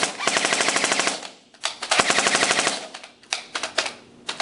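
Lancer Tactical M4 airsoft electric gun (AEG) firing full-auto in bursts on a 9.6 V battery: a rapid mechanical clatter in a long burst of about a second, a short burst, another burst of about a second, then a few short bursts. The gun still fires after being badly damaged by repeated throws onto concrete.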